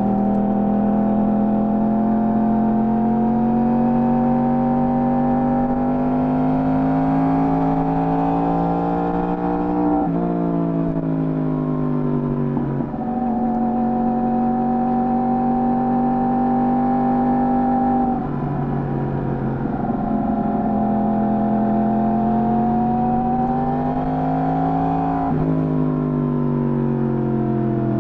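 Yamaha R1 motorcycle's inline-four engine through its stock exhaust, running under load with a note that climbs slowly, then drops away sharply several times as the revs fall, before rising again.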